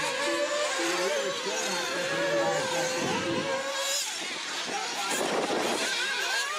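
Several 1/8-scale nitro RC off-road cars racing, their small two-stroke glow engines whining at high pitch, rising and falling as the throttles open and close.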